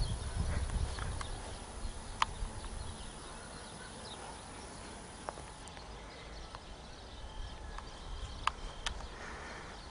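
Footsteps walking over dry grass and dirt, heaviest in the first few seconds and then softer, with a few sharp clicks along the way.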